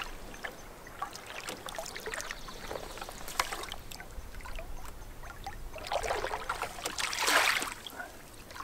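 Wooden canoe paddle stroking through calm water, with a swishing, trickling swell of water that is loudest a little before the end. A few faint clicks and knocks come earlier.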